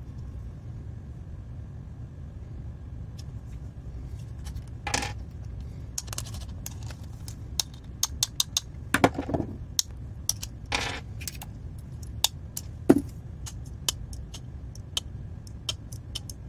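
Handling noise from a screwdriver bit-holder handle and a small tape measure being turned over in the hands: scattered light metallic clicks and taps, coming thicker after the first few seconds, with a few duller knocks, over a steady low hum.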